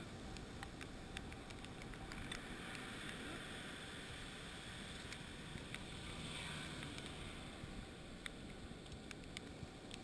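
Steady, faint wash of surf and wind at the shoreline, with scattered small clicks and rustles from hands working a hook and line.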